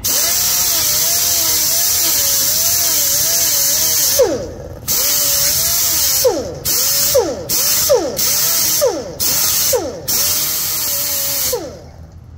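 Handheld power grinder trimming the edge of a sheet-metal cab corner patch panel: a loud hissing whine that wavers in pitch under load, a long run of about four seconds and then a string of short bursts, the pitch falling each time the trigger is let off.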